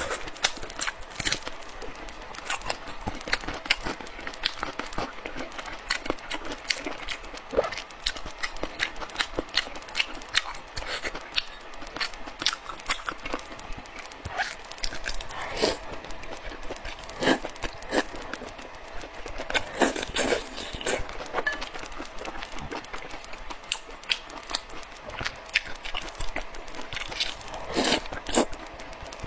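Close-miked eating sounds of a person chewing and slurping wide noodles in chilli broth: many sharp, wet mouth clicks and smacks at irregular intervals, with a few longer slurps.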